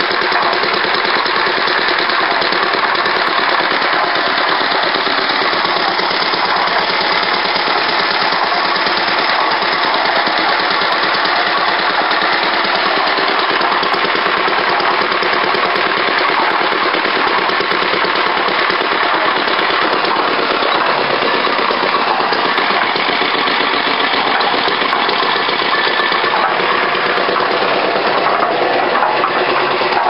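1942 Liner concrete mixer's Lister engine running steadily with a fast, even beat.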